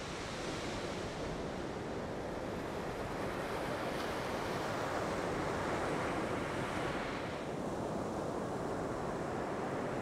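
Ocean surf breaking and washing up a sandy beach: a steady rushing hiss that swells a little midway and eases slightly near the end.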